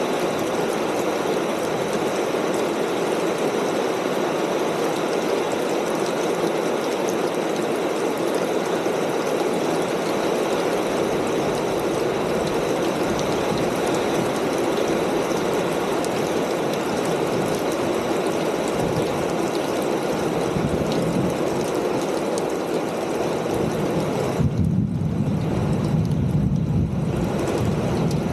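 Steady rain falling on a corrugated metal roof, an even hiss of countless drops. About three-quarters of the way through the sound turns duller and deeper for a few seconds.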